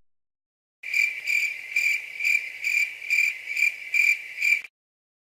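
Stock crickets-chirping sound effect: a high chirp pulsing about two to three times a second, about nine pulses, starting about a second in and cutting off suddenly near the end.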